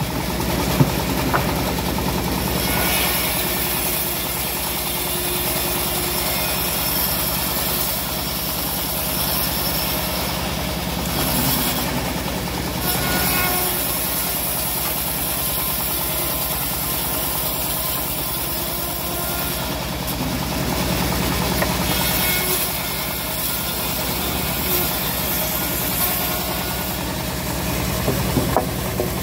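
Homemade band sawmill running steadily while its blade rips teak into planks. A high cutting hiss swells during each pass of several seconds and drops back briefly between passes, over the machine's constant drone.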